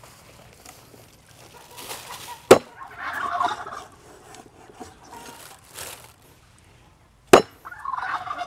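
Two sharp chops of a large knife cutting through rabbit meat onto a wooden cutting board, about five seconds apart. Poultry calls in the background, just after the first chop and again near the end.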